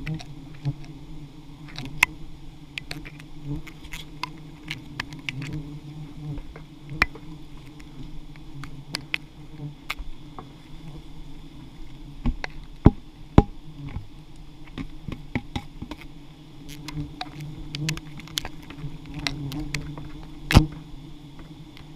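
A dense swarm of giant honeybees (Apis dorsata) buzzing steadily around an open nest. Scattered sharp ticks run through it, with a few louder knocks around 13 seconds and 20 seconds in.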